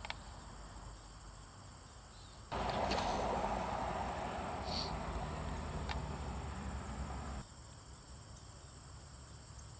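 Crickets chirring steadily on one high note. A louder rush of noise comes in abruptly about two and a half seconds in, lasts about five seconds and cuts off suddenly.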